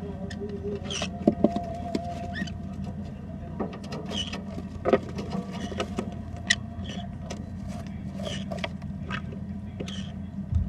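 Yellow-sided conures moving about close to the microphone: scattered clicks and scratches with a few short, soft chirps over a steady low hum.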